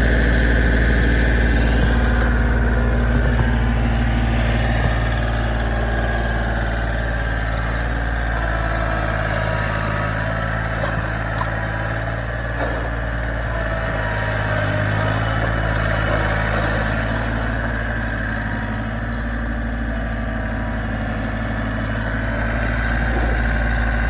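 John Deere 4300 compact tractor's three-cylinder diesel engine running steadily, heard first close up at the back of the tractor. About a third of the way in the sound changes as the tractor drives across gravel, and it grows a little louder near the end as the tractor comes closer.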